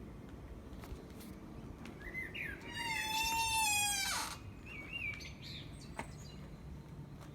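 A bird singing at night: a few short chirps, then a loud, harsh, buzzy phrase lasting about a second and a half, followed by a couple of short warbled notes.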